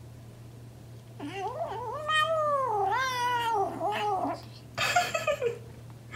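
Young black kitten meowing: a long, wavering cry that rises and falls in pitch several times, starting about a second in, then a shorter, hoarser meow that falls away near the end.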